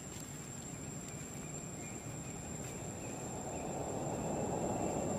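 Outdoor background noise: a constant thin high whine over a low rumbling noise that grows steadily louder from about three seconds in.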